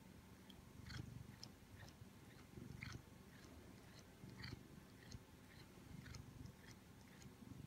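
Siamese cat purring faintly, the low rumble swelling and easing about every second and a half with its breathing, with small soft clicks from its mouth as it works its jaw.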